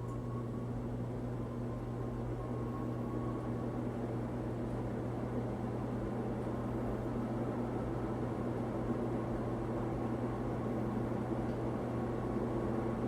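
Lasko 48-inch ceiling fan with an all-metal motor housing running, its motor giving a steady low hum. The owner calls this model rather noisy.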